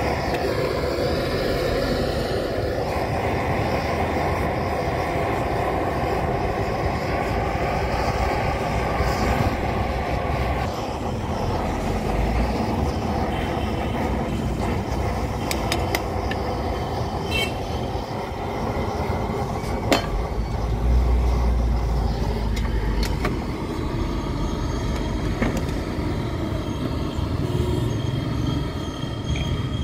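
Pressurised blowtorch running steadily while it heats a ladle of metal scraps. A few sharp metal clicks come in the middle, from a spoon stirring in the ladle.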